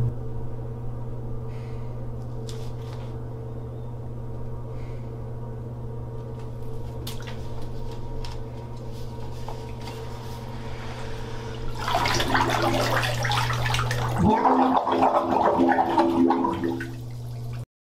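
A steady low hum, then from about twelve seconds in, water churning and bubbling in a full bathtub with a person under the surface. It grows loudest near the end and cuts off suddenly.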